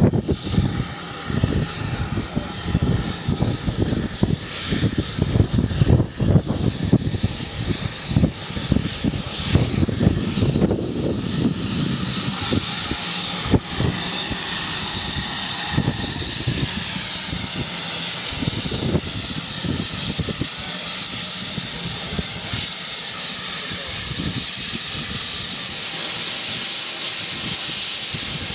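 GWR 56xx 0-6-2 tank engine No. 5643 running slowly into the station, with a low rumble and irregular knocks from its wheels and motion. About twelve seconds in this gives way to a steady hiss of escaping steam from the standing locomotive.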